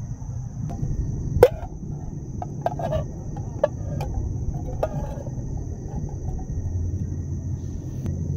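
Crickets chirping steadily over the low rumble of a lit camping gas stove burner, with a few sharp metal clinks and knocks as a frying pan is set down on the stove's pot supports; the loudest clank comes about one and a half seconds in.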